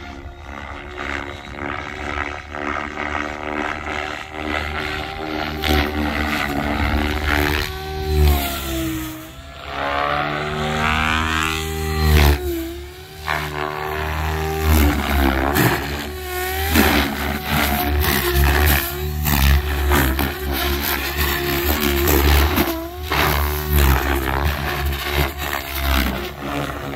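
XL Power Specter V2 electric RC helicopter flying 3D aerobatics: the brushless motor and main rotor whine, their pitch bending up and down again and again as the head is loaded and unloaded through manoeuvres, over a steady low rumble.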